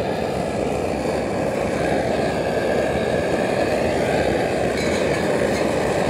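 MSR Dragonfly liquid-fuel camp stove burning under a pot of water, a steady, loud rushing noise.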